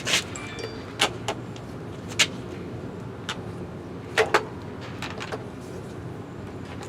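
Scattered sharp clicks and knocks of metal parts handled and set against each other as the Onyx RCR electric bike is settled onto its work stand, two of them close together a little past four seconds in, over a steady low hum.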